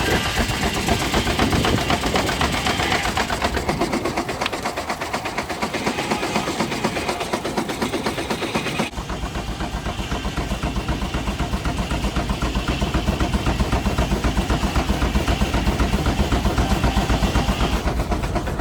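Steam traction engine running under load on a sawmill belt, its exhaust chuffing in a rapid, even rhythm. The sound changes abruptly about halfway through.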